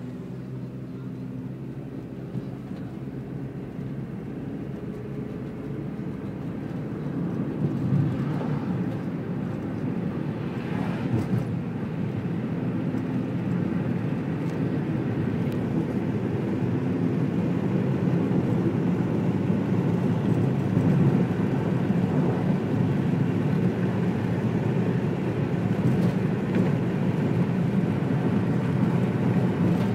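Car engine and road noise heard from inside the cabin while driving, a steady rumble that grows louder over the first half or more of the stretch and then holds level.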